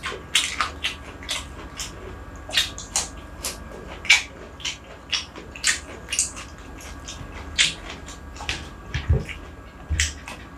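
Close-miked eating sounds: an irregular run of wet mouth smacks and clicks, two or three a second, as a mouthful of rice is chewed. A couple of low thumps near the end.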